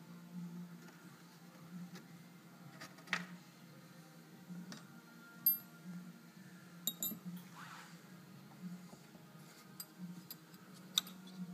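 Scattered sharp metallic clicks and clinks of an Allen key and small screws being worked loose, a few seconds apart, over a faint steady low hum.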